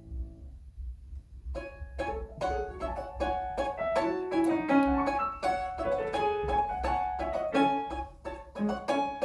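A plucked string instrument with piano accompaniment: a held chord dies away, about a second of pause follows, then a fast, lively melody of quickly plucked notes starts over the piano about a second and a half in.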